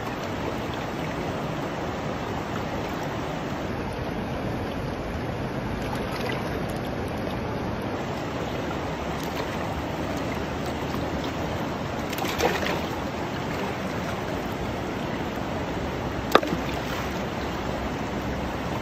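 Fast-running river rapids rushing steadily over rocks. Two brief sharp knocks stand out, one about twelve seconds in and another about four seconds later.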